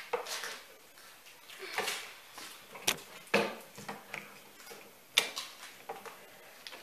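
A wooden board and clamp being handled and clamped down on a workbench: five or so separate sharp knocks and clacks, the loudest about three and five seconds in.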